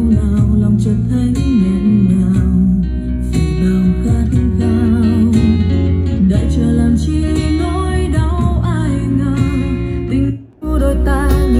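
A song with guitar and a sung voice played back through a portable speaker for a sound test. The music cuts out for a moment near the end, then comes back.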